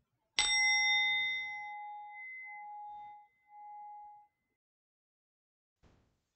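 A bell struck once, ringing out and fading away over about four seconds, its tone pulsing as it dies.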